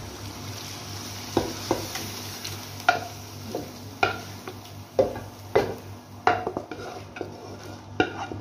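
A metal spoon clinking and scraping against a metal cooking pot as chicken masala is spooned over the layer of boiled rice while a biryani is being layered. The clinks come irregularly, each with a short ring.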